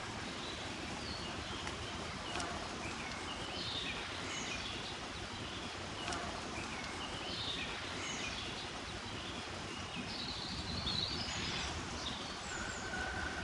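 Small birds singing short chirping phrases every couple of seconds over a steady outdoor background hiss.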